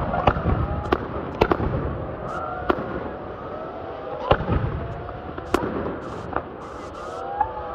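Aerial fireworks display: shells bursting in about nine sharp bangs at irregular intervals, the loudest near the start, over a continuous rumble.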